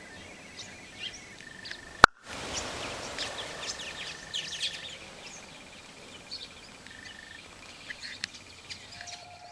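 Many small birds chirping and twittering together, with thin held notes and trills among them. A single sharp click about two seconds in.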